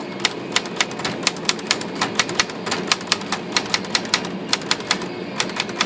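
Smith Corona Corsair manual typewriter being typed on, its type bars striking the platen in a quick, even run of sharp clicks, about four or five a second. The type bars are swinging freely, the one that was binding now cured.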